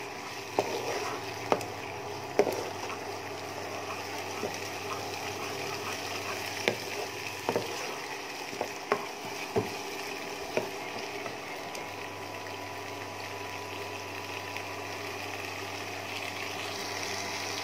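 Spiced onion masala sizzling in oil in a nonstick wok while a wooden spatula stirs it. Sharp taps of the spatula against the pan come every second or so through the first ten seconds.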